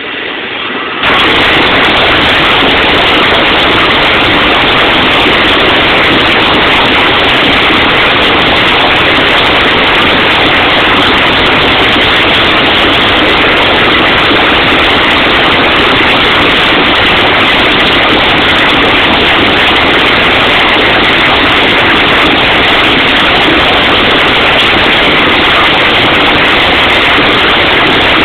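Loud, steady, distorted machine noise in a blacksmith's shop. It reaches full level about a second in, with no separate blows standing out.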